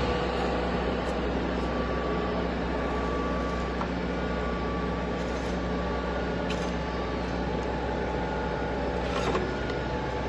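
Soviet Stanko 6A82 dual-spindle milling machine running with a steady motor and gearbox hum, while the spindle-speed selector dial and lever are worked, giving a couple of light clicks in the second half.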